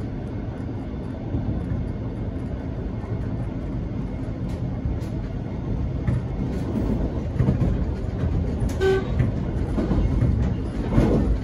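X'Trapolis electric train running at speed, heard from inside the carriage: a steady low rumble of wheels on rails that grows louder in the second half. There is a short pitched tone about nine seconds in.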